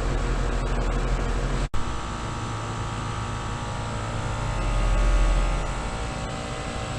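Outdoor unit of a 2018 Bryant Preferred Series air conditioner, with a Copeland scroll compressor and condenser fan, running with a steady hum. The sound cuts out abruptly for an instant about two seconds in, then continues with steady tones and a low swell near the middle.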